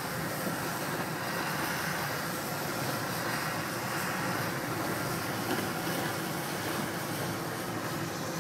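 Steady road noise from a slowly driven SUV: tyres rolling on asphalt with wind over the microphone, even throughout.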